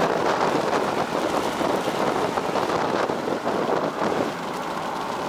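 Steady wind noise buffeting the microphone, mixed with the road noise of a moving vehicle; it eases a little about four seconds in.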